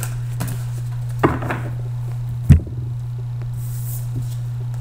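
A deck of tarot cards being handled and set down on a table: a light knock about a second in, then a sharper thump about halfway, the loudest sound, with a few faint card clicks, over a steady low hum.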